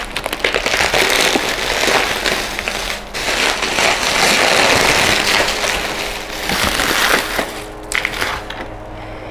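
Bubble wrap crinkling and crackling as it is handled and pulled open, dense and close, easing off near the end.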